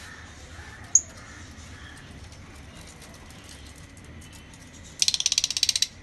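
Lovebirds in an aviary: a single sharp high chirp about a second in, then near the end a loud, fast rattling chatter of rapid clicks that lasts under a second.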